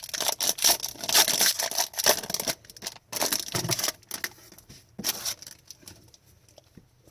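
Foil wrappers of 2021-22 Upper Deck Series 1 hockey card packs being torn open and crinkled: a run of sharp crackling rustles that dies away about five seconds in, leaving faint clicks of cards being handled.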